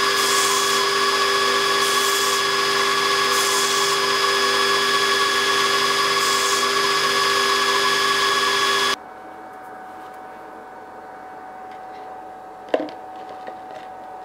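Bench belt grinder running with a steady whine, a small brass ring pressed to the belt now and then, adding a hiss with each pass. About nine seconds in it gives way to a much quieter steady hum, with one sharp knock near the end.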